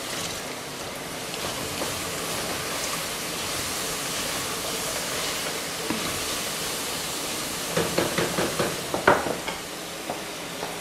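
Steady rush of water at the kitchen sink as soaked figs are drained. About eight seconds in comes a short run of clinks and knocks of utensils against a pot and dishes.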